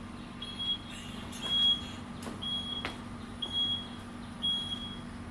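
Power tailgate's warning beeper sounding short, high beeps about once a second while the tailgate operates, over a steady low hum.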